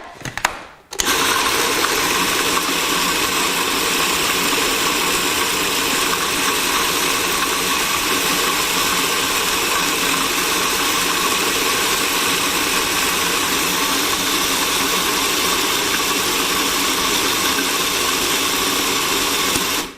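Food processor motor switched on about a second in and running steadily, with a whirring hum and noise, as it blends a thick, sticky mixture of ground nuts, dates and cacao powder. It then stops suddenly.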